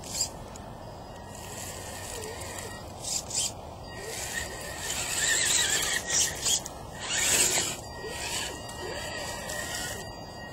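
Dead leaves crunching and rustling in several bursts over a steady low hiss.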